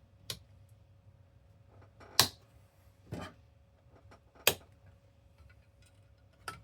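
Four sharp clicks and knocks of hard plastic console parts being handled as a wire is pushed into place during reassembly of an Xbox Series X, the loudest about two seconds in.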